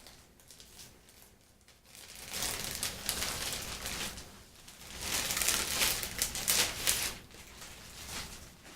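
Plastic packaging crinkling as it is handled, in two spells of a couple of seconds each.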